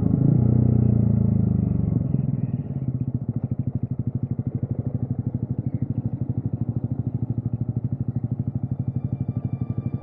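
Yamaha XSR155's single-cylinder engine through a modified exhaust, running loud for about two seconds, then dropping off the throttle and settling to a lower, evenly pulsing idle.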